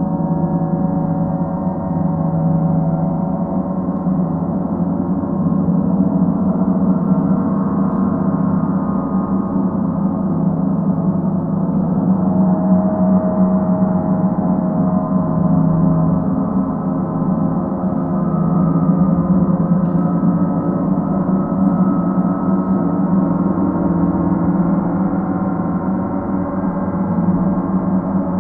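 Paiste planetary gongs sounding in a continuous wash: many overlapping tones swelling and fading over a strong, steady low hum, with no distinct strikes.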